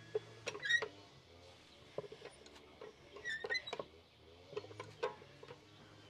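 Hand-lever tortilla press being worked: knocks of the lever and plate, with squeaky creaks from the hinge twice, about half a second and three and a half seconds in.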